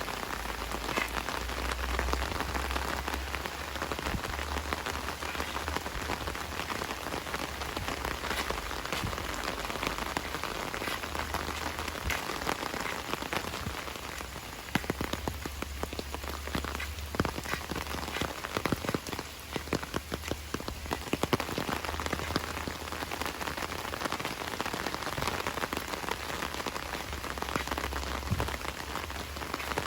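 Heavy rain: a dense steady hiss full of sharp single drop hits, over a low rumble. About halfway through the hiss thins for several seconds and single louder drops stand out.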